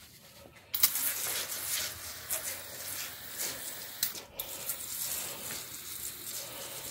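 Aerosol can of foaming engine degreaser spraying: a steady hiss that starts about a second in, breaks off briefly around four seconds in, and then resumes.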